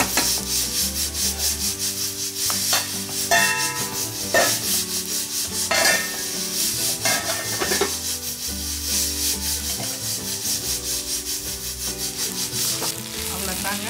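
Metal spatula scraping and stirring sliced onions in a non-stick pan in repeated rubbing strokes, with a few metal clinks around the middle as a steel lid is set on the pan.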